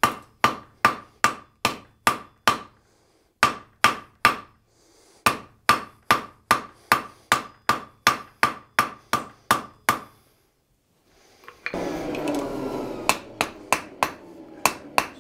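Hand hammer striking a hot steel bar on a blacksmith's anvil horn, rounding up the drawn-out bar. The blows come in a steady rhythm of about three ringing strikes a second, with two short pauses, and stop about ten seconds in. Near the end a steady rushing noise comes in under a few lighter blows.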